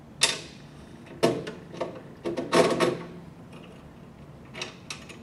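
Clicks, knocks and rattles of metal parts against a metal electrical enclosure as a thermostat is fitted through the hole in its top and its panel nut is put on by hand. A handful of sharp knocks, the busiest run about two and a half to three seconds in, with lighter clicks near the end.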